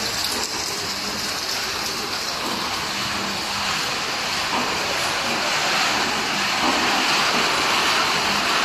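Steady machine noise of a corn curls production line running: an even hiss over a faint low hum, with no change in level.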